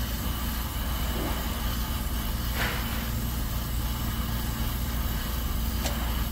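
Brazing torch flame burning with a steady hiss as it heats a copper refrigerant joint at the filter drier to unsweat it, over a steady low hum.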